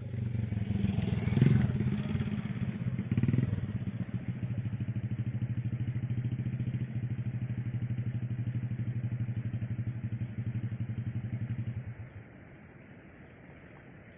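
A small engine running steadily at a constant pitch with a fast, even pulsing beat, then cutting off suddenly about twelve seconds in.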